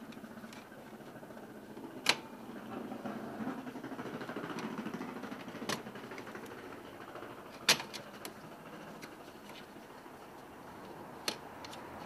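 Hands working the plastic trim and head unit of a Skoda Superb's dashboard radio: rubbing and handling noise with four sharp plastic clicks, the loudest about two and eight seconds in.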